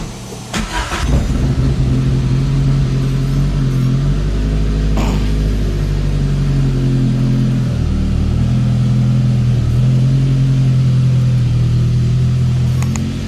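Car engine cranking and starting about half a second in, then running at a steady idle with small shifts in its note.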